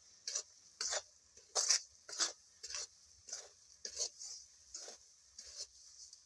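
A utensil scraping round the inside of a kadhai as a thick mix of roasted wheat flour and melted jaggery is stirred, in repeated strokes about two a second.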